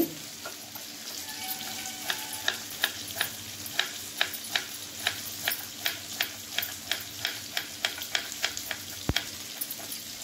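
Knife chopping peeled yellow cucumber on a wooden cutting board, in a steady run of about three cuts a second that stops near the end, over a faint sizzle of vegetables frying in oil in a pan.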